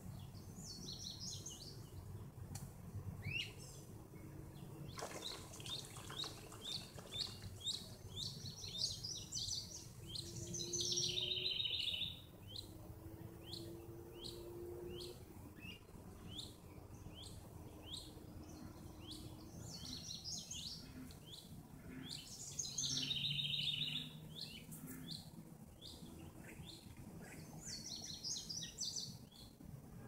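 Birds singing and calling: a steady run of short, quick chirps, with a fuller warbled song breaking in about a third of the way in, again about three quarters in, and once more near the end.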